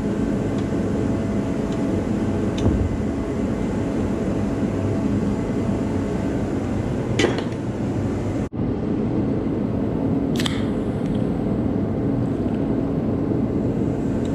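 Steady low machine hum and rumble, with a couple of light clicks from hand tools being handled. The sound drops out for an instant a little past the middle.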